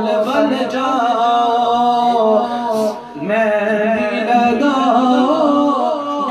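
A man singing a devotional naat unaccompanied into a microphone, in long held, ornamented notes with a short break for breath about three seconds in.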